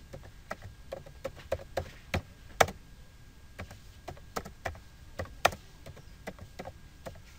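Computer keyboard being typed on: irregular keystrokes, about three a second, some louder than others.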